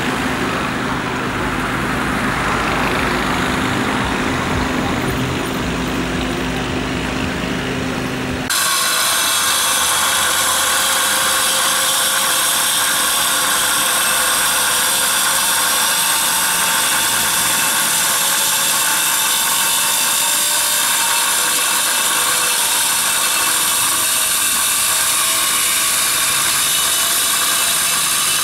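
Repair machinery running steadily: first a low-pitched engine, then, after an abrupt change about eight seconds in, a high-pitched power tool running continuously.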